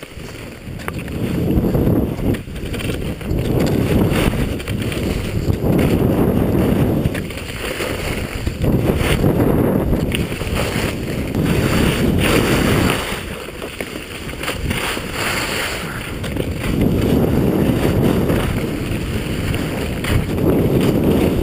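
Rossignol skis hissing and scraping over snow, swelling with each turn about every two seconds, with wind rushing over the microphone.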